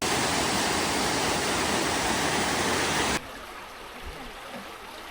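Waterfall close by: a loud, steady rush of falling water that cuts off abruptly about three seconds in, leaving a much quieter background.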